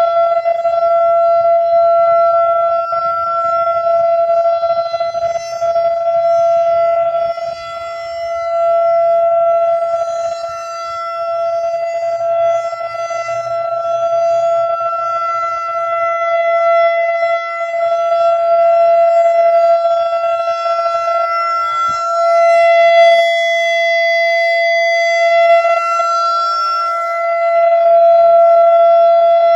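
Federal Signal 2001-DC Roundback rotating outdoor warning siren sounding its steady alert tone. It holds one unbroken note, really loud, that swells and fades over several seconds at a time as the siren head rotates.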